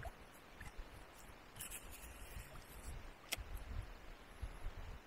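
Faint low rumble of water and wind around a kayak, with a single sharp click a little over three seconds in.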